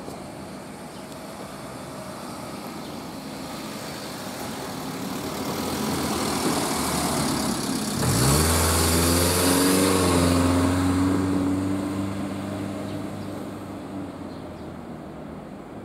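A vehicle passing close by: engine and wheel noise build over several seconds, are loudest about eight to eleven seconds in, where the engine note drops in pitch as it goes past, then fade away.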